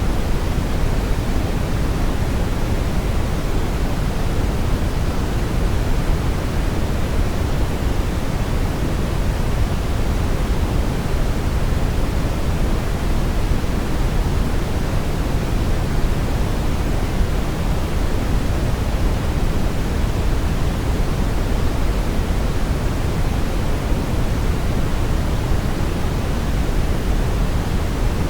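Steady brown noise: an even, unbroken rushing hiss weighted heavily toward the low end, with no tones or events.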